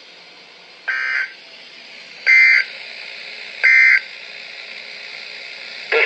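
NOAA weather alert radio playing the EAS end-of-message data code: three short bursts of data tones about a second and a half apart, the first quieter, over steady radio hiss. It marks the end of the severe thunderstorm warning broadcast.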